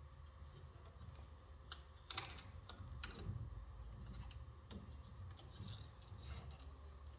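Faint, irregular light clicks and clinks of shaper tooling being handled by hand: the cutter head and spacer rings on the spindle of a Felder CF 741s combination machine, over a low steady hum. The loudest cluster of clicks comes about two seconds in.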